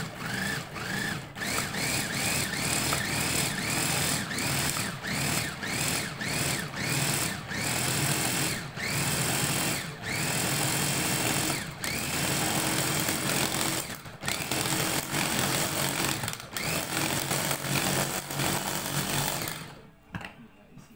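Electric push-top mini chopper (hachoir) chopping fresh parsley, its motor run in short pulses, each a whine that rises in pitch as the blades spin up. The pulses grow longer in the middle, and the motor stops shortly before the end.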